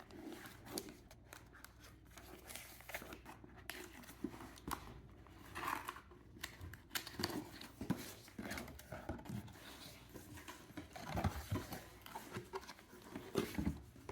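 A cardboard humidifier box being opened by hand, with irregular short scrapes, rustles and tearing of tape, flaps and packing material.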